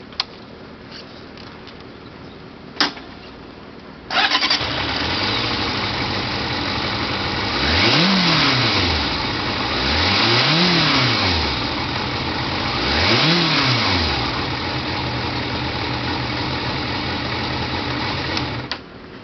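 A click, then the Kawasaki ZRX400's inline-four engine starts about four seconds in and settles into an idle. It is revved in three short blips, each rising and falling in pitch, and is switched off just before the end.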